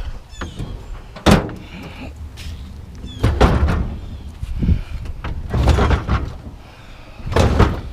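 Scrap metal being handled and loaded into a truck: a sharp bang about a second in, followed by several clattering, scraping knocks.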